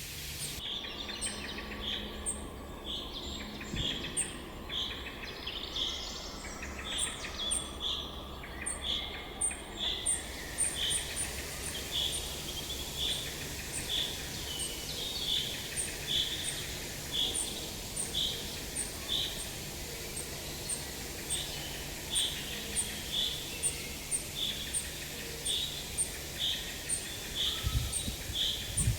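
Birds calling in a garden: one bird repeats a short, high call evenly, a little under twice a second, each call led by a faint higher tick, while other birds sing in the first ten seconds or so. A steady background hiss lies under them.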